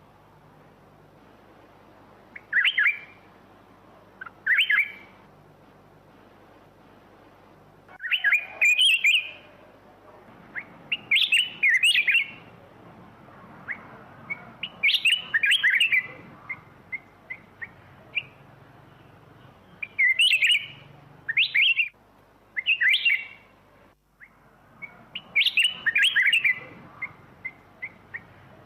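Black-crested bulbul singing: short, bright warbled phrases repeated every two to four seconds, with a few single chirps between them.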